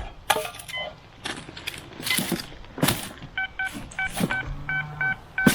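Handling noise with knocks and rustles, then from about three and a half seconds in a metal detector gives a quick run of short electronic beeps over a target.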